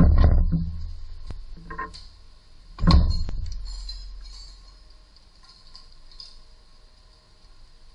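Car wheel being refitted on its hub: two heavy metallic knocks about three seconds apart, each dying away with a low boom, a lighter knock between them, then faint clinks as the lug nuts are threaded on by hand.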